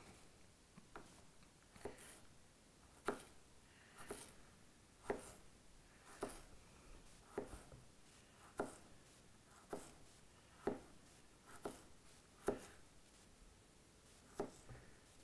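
A Victorinox Hunter Pro knife blade cutting through a hard apple: a short, crisp crunch about once a second, repeated steadily.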